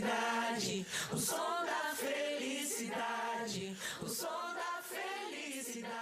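A group of voices singing the repeated chorus line of a pop song, mostly voices alone, slowly fading out as the song ends.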